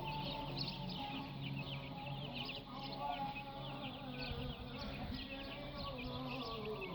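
Birds calling: many short high chirps, several a second, over lower clucking sounds.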